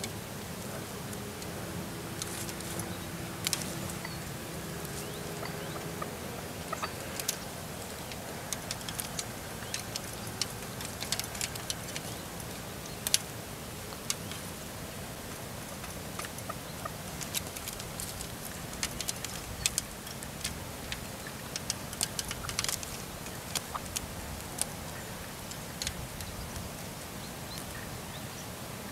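Red-legged partridges close by a caged decoy partridge: scattered short, sharp ticks and clicks over a steady low background, with a faint low drone in the first six seconds or so.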